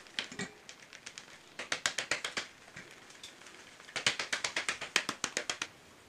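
Plastic flour sieve shaken and knocked against a steel bowl while sifting wheat flour, rattling in quick runs of about eight taps a second. There are two runs, each lasting a second or so.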